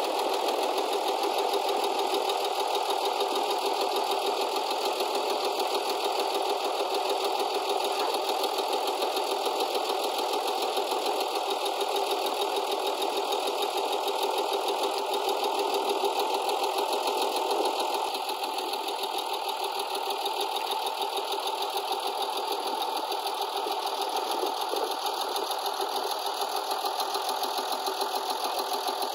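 Hesston 1880DT tractor's diesel engine running steadily at close range, a little quieter from about two-thirds of the way through.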